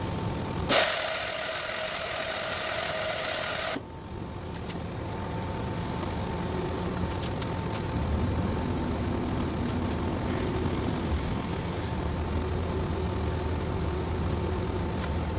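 A loud hiss of compressed air for about three seconds that cuts off sharply, then a steady low machinery hum with a few faint clicks.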